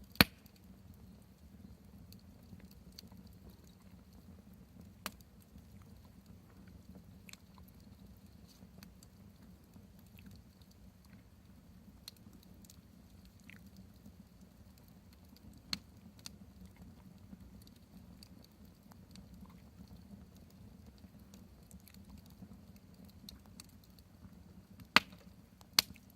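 Wood campfire crackling, with scattered sharp pops: the loudest right at the start and two close together near the end, over a low steady hum.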